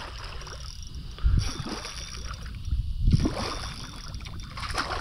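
Water lapping and sloshing against the hull of a fishing kayak, with two dull knocks about one and three seconds in.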